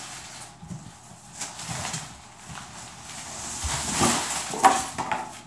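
Large cardboard box being handled and tipped up, with packing material rustling and spilling out. Irregular rustles build to a sharp knock about four and a half seconds in.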